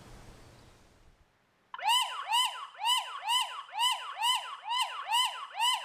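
Eufy floodlight camera's built-in siren sounding: a loud, rapid wail, each sweep rising and falling in pitch, about two a second. It starts suddenly a little under two seconds in, after a faint fading hiss.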